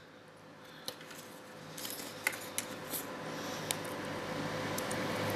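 Light, scattered clicks and taps of small plastic and metal parts being handled: a cordless cellular shade's plastic spring cartridge and its coiled metal spring turned over in the fingers. A faint steady hum lies underneath and grows slowly.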